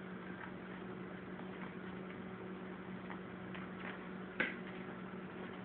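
A cat playing on a vinyl floor, its claws and paws giving faint scattered ticks and scuffs, with one sharp click about four and a half seconds in, over a steady low hum.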